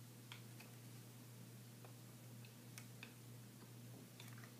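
Near silence: a steady low hum with a few faint, scattered clicks while a person quietly eats a flapjack and handles its clear plastic packaging.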